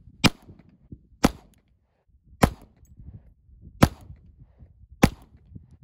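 Five pistol shots from a SIG Sauer handgun, fired one at a time at an unhurried pace, about a second or more apart.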